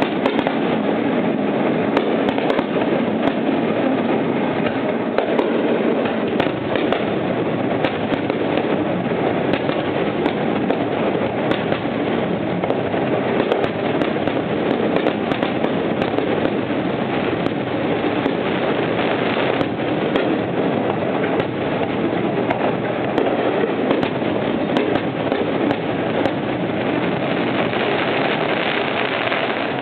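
Fireworks display in a dense, continuous barrage: overlapping bursts and crackling with no pause between them, and a run of quick crackles near the end.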